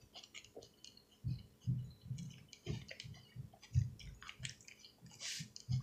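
Close-up chewing of a mouthful of salad, mouth near the microphone: irregular soft smacks and crunches.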